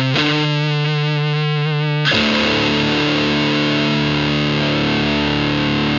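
Electric guitar played through a Palomar Sound Cholla op amp fuzz pedal at maximum gain. A held, fuzzed note sustains, then a fuller distorted chord is struck about two seconds in and left to ring out.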